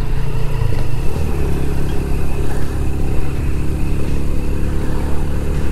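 Motorcycle engine running steadily while riding along a mountain road, its pitch holding fairly even.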